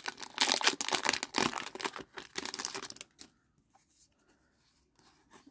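Foil wrapper of a Pokémon trading card booster pack crinkling as it is torn open and the cards are pulled out: a dense crackle that dies away about three seconds in, leaving a few faint rustles of cards being handled.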